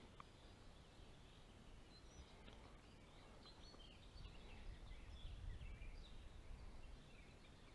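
Near silence: faint scattered birdsong chirps over quiet outdoor ambience, with a low rumble that swells briefly around the middle.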